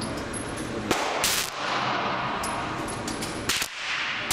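Two shots from a 1911-style semi-automatic pistol on an indoor range, about two seconds apart, with a fainter crack just before the first.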